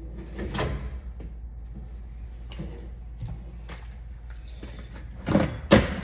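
Scattered clicks and small knocks from handling tools and metal parts, with one knock about half a second in and two louder knocks in quick succession near the end, over a low steady hum.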